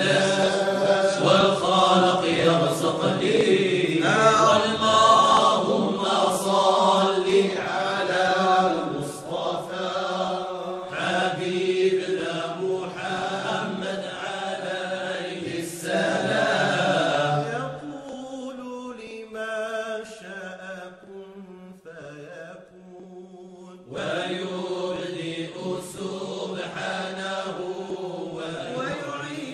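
Background music: a Moroccan song in a passage without sung lyrics, with chant-like sustained voices or instruments and occasional sharp hits. It thins out and drops in level for a few seconds past the middle, then comes back full.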